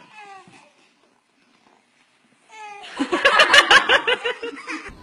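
A baby's short voiced vocalising, then a pause. About two and a half seconds in, a voice rises into a loud burst of rapid, hearty laughter lasting nearly two seconds.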